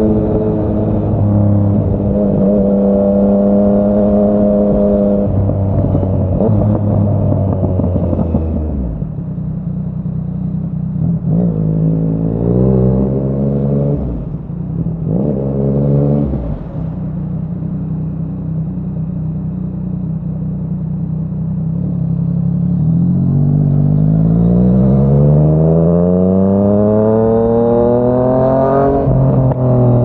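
Yamaha MT-09's inline three-cylinder engine through a Yoshimura R55 slip-on exhaust, under way. It holds steady revs, rolls off about eight seconds in and picks up briefly twice. It then runs low and steady before a long rising pull through the revs, which drops back with a gear change near the end.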